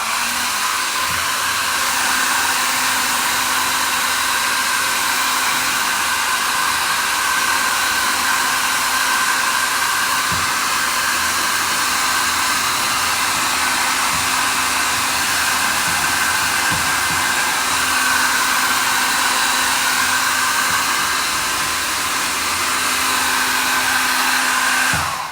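Mi Ionic H300 handheld hair dryer running steadily as it blows on damp hair: an even rush of air over a faint motor hum, cutting off at the very end.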